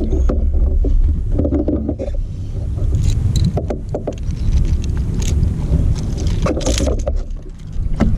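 Wind rumbling steadily on the microphone aboard a kayak, with several short splashes and knocks as a hooked snook is brought alongside and handled.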